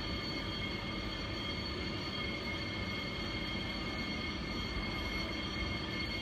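Bombardier TRAXX class 185 electric locomotive hauling a train slowly out of the station: a steady low rumble with a steady high-pitched whine over it.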